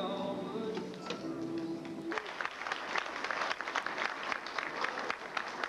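Audience applauding. Held tones fade out about two seconds in, and the clapping comes through denser and sharper after that.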